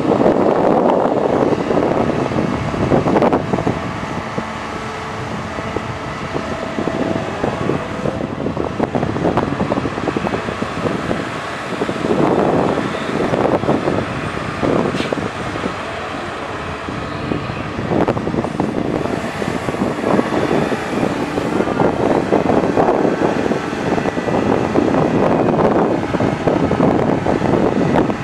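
CAT 320D hydraulic excavator's diesel engine working under load as it digs and swings. The sound swells and eases every few seconds as the boom and bucket strokes come and go.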